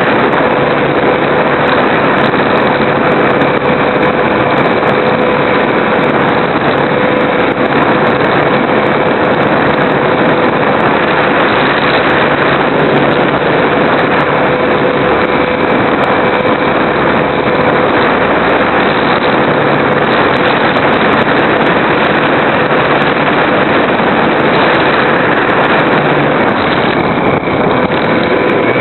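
Super Cub RC model airplane in flight, heard through its onboard camera: the motor and propeller make a steady tone over a loud, unbroken rushing noise.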